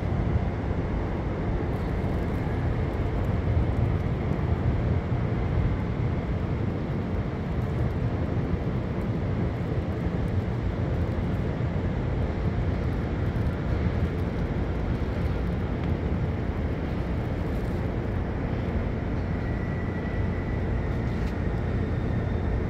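Steady low rumble of city traffic, with a faint high tone heard briefly near the end.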